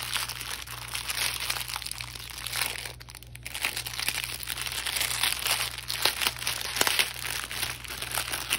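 Clear plastic packaging around a diamond painting kit's bagged drills crinkling as it is handled, with a short pause about three seconds in.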